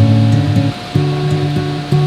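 Background music: an acoustic guitar strumming chords, changing chord about a second in, with no singing.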